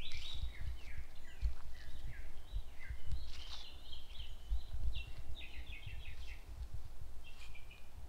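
Wild songbirds chirping and singing in woodland: short high notes and quick trilled series from several birds, overlapping, over a low uneven rumble.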